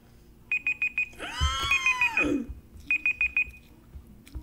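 A computer's one-minute countdown timer alarm goes off: three quick groups of four short, high beeps, marking the end of the minute. Over the second group of beeps a person makes a loud, drawn-out vocal sound that rises and then falls in pitch.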